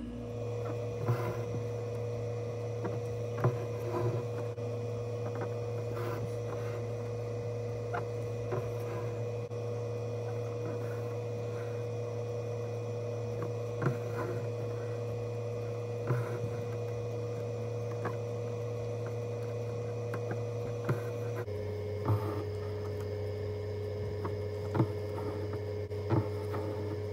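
Embroidery needle piercing fabric stretched taut in a wooden hoop, a sharp tick every second or two as the thread is drawn through, over a steady electrical hum whose pitch drops slightly near the end.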